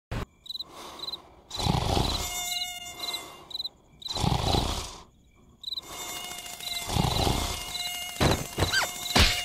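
Cartoon night sound effects: crickets chirping in short quick trills, a mosquito's steady buzzing whine, and a sleeping larva snoring in slow loud breaths about two and a half seconds apart. A few short sharp squeaks come near the end.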